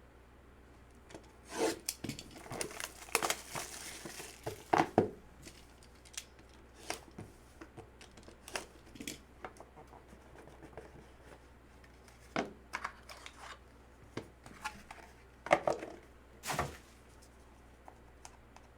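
Sealed trading-card packaging being torn open by hand: tearing and crinkling, then scattered rustles and taps as the packaging and cards are handled.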